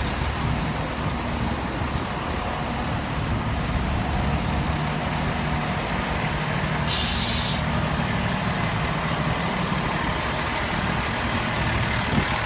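FDNY fire trucks' diesel engines idling with a steady low hum, and a short hiss of air brakes about seven seconds in.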